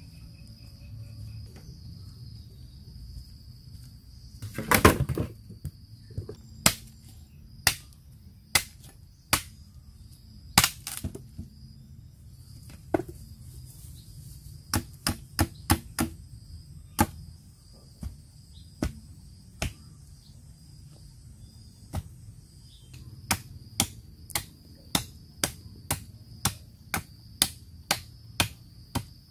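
Machete chopping into a thin sapling trunk: sharp single strikes, scattered at first, then a steady run of about two a second near the end, with a louder, longer crash about five seconds in. Insects drone steadily in the background.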